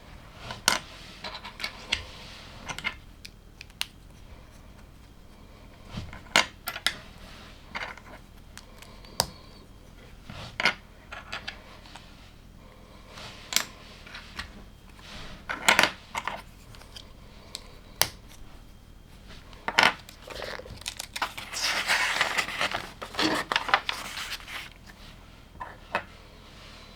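LEGO plastic bricks being handled and snapped together: scattered sharp clicks and small clatters, with a denser stretch of rattling and rustling about three quarters of the way through.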